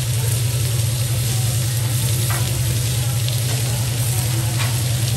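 Raw chicken breasts and sliced zucchini and onion sizzling steadily on a hot teppanyaki griddle, over a steady low hum. Two light clicks come about two and a half and four and a half seconds in.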